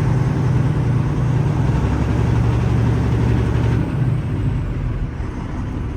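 Heavy diesel semi-truck engine idling steadily with a deep, even hum, easing down a little about four seconds in.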